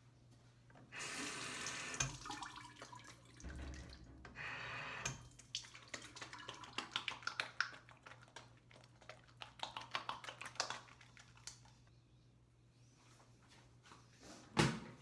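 Tap water running into a sink in two short bursts, then a long run of quick splashes and drips, with one sharp knock near the end.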